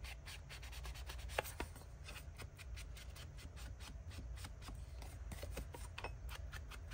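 Ink blending tool dabbed on a Distress Oxide ink pad and rubbed along the edges of a cardstock tag: quick soft taps and scuffs, several a second.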